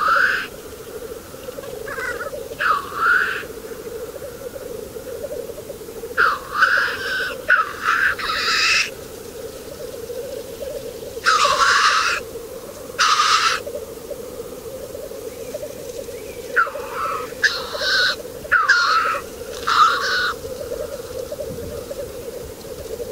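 Black grouse lek: a steady bubbling chorus from the displaying cocks, cut through by about a dozen loud hissing 'tchu-whee' sneezes in irregular clusters.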